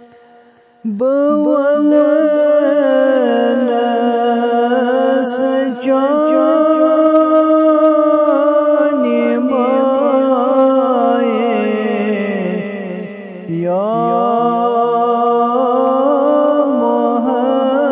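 A single voice singing a naat unaccompanied, in long held notes with wavering ornaments. A new phrase begins about a second in, and there is a short breath break about three-quarters of the way through before the next phrase.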